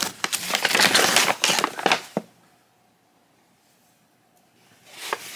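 A kraft-paper blind bag being opened by hand: the paper crinkles and rustles with sharp crackles for about two seconds, then goes nearly silent, with a faint rustle near the end.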